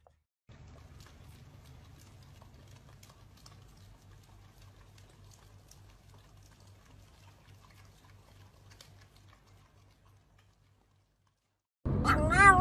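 Faint small licking clicks over a low hum, fitting two huskies licking an ice-cream cone. Near the end, a Pomeranian starts a loud, high howl that rises and then wavers.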